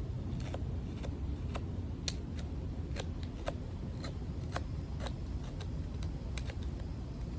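Lockback folding knife blade shaving thin curls off a stick for tinder: a string of short, sharp scraping clicks, about two a second, over a steady low rumble.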